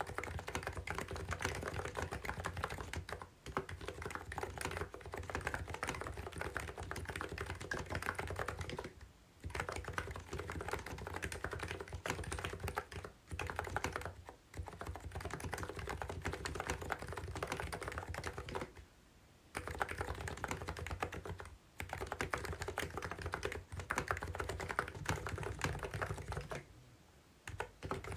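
Typing on a COX CNK84W electro-capacitive (non-contact) mini keyboard: a dense patter of keystrokes in runs of several seconds with brief pauses between them, the rounded 'bubbly' (보글보글) key sound.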